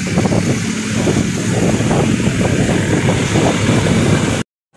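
Road traffic running past on a bridge, a steady loud rush with wind on the microphone; it cuts off suddenly near the end.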